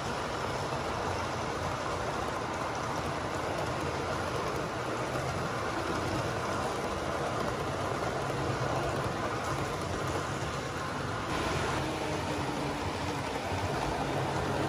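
HO scale model freight train rolling past close by: a steady noise of its metal wheels running on the track.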